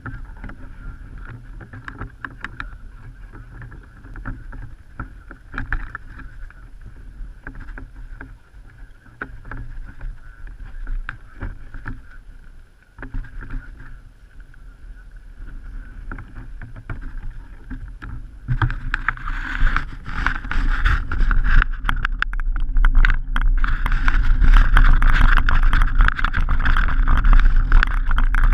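Mountain bike rolling over a gravel track, heard through a camera mounted on the bike: tyre crunch, rattling and low wind rumble on the microphone. It is quieter with scattered clicks at first, then grows louder and rougher about two-thirds of the way through as the bike picks up speed.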